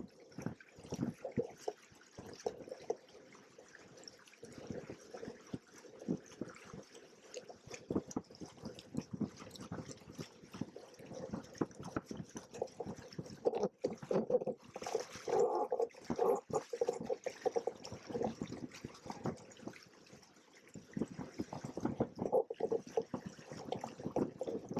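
Water lapping, splashing and gurgling irregularly against the hulls of a Hobie Cat 16 catamaran under sail. The splashing grows busier around the middle and again near the end.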